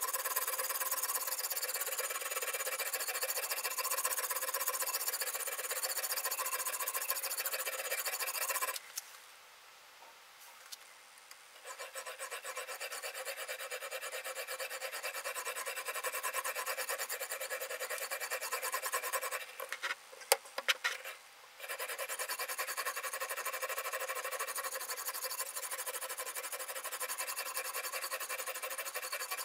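A sharpening stone on a guided-rod knife sharpener is stroked steadily along the edge of a Damascus steel chef's knife, making a continuous rasping scrape. The stroking stops for a few seconds about nine seconds in. It stops again about twenty seconds in, and that pause is broken by a few sharp clicks.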